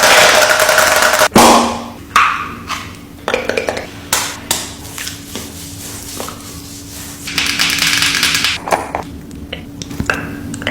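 Makeup products and their cases handled close up: a hiss at the start ending in a sharp click, then scattered clicks and taps of lids and packaging, and a second hiss lasting over a second about seven seconds in.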